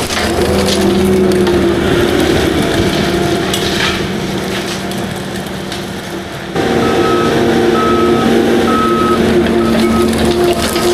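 Skid steer running hard with a Coneteks SMD88 forestry-rotor subsoil mulcher grinding trees and brush into the soil. About six and a half seconds in the sound gets abruptly louder, and a backup alarm beeps repeatedly from then on.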